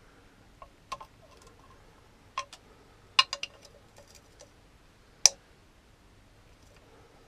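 Small hand socket ratchet clicking, with metal tool clinks, in short scattered bursts as bolts are worked loose. There is a quick run of clicks a little past three seconds in and the sharpest single click a couple of seconds later.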